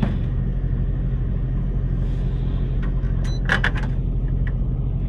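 Semi truck's diesel engine running steadily, a low even rumble heard inside the cab. Over it, a few clicks and rustles of things being handled, the loudest cluster a little past halfway.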